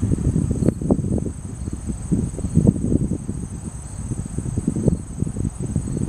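Insects, crickets, trilling in a steady high chorus that never stops. Underneath is an uneven low rumble that is louder than the trill.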